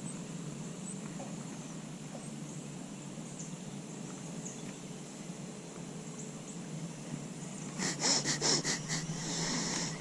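Steady outdoor background with a low hum and faint, scattered high chirps of insects or birds. Near the end comes a couple of seconds of louder, rapid rustling or clattering.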